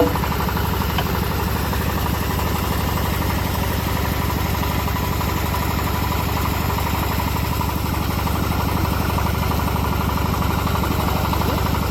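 Engine of a homemade bandsaw mill running steadily, with an even, fast pulse and a faint steady whine above it.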